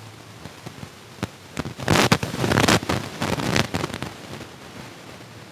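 Close-miked chewing of crunchy fried street food: a dense run of crackling crunches lasting about two and a half seconds, loudest in the middle, then fading.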